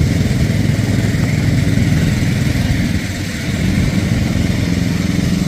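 An engine running steadily at idle, a continuous low rumble.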